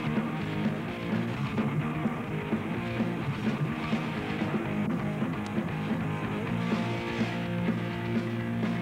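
Rock music soundtrack with guitar, playing continuously.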